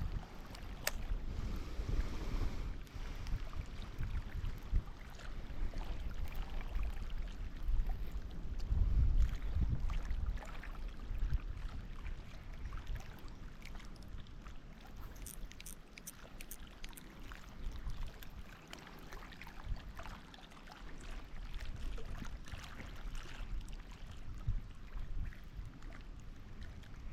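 Wind rumbling on the microphone in uneven gusts, strongest at the start and again about nine seconds in, with small scattered clicks.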